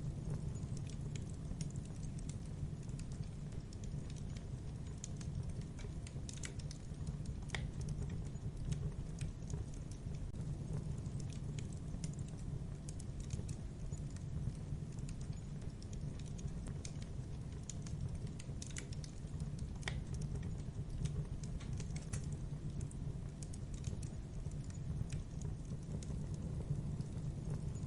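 Steady low rumble with sharp crackles and ticks scattered irregularly throughout.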